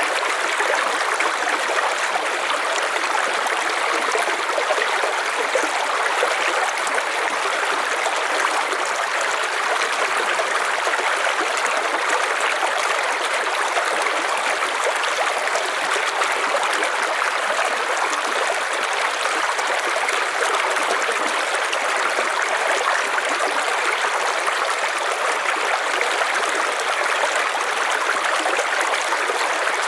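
River water flowing steadily over rocks: an even, constant rushing and trickling.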